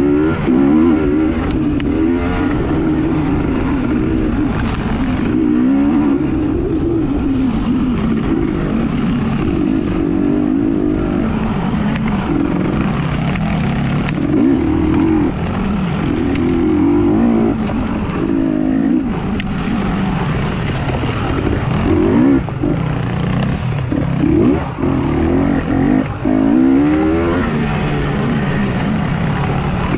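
Racing engines running at high revs, their pitch repeatedly climbing and falling as they accelerate and back off, with a few short dips in loudness toward the end.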